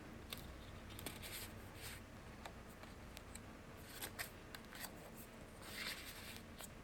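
Faint, soft rustling and light ticks of paper pages being turned and handled in a handmade junk journal, in a few brief spurts.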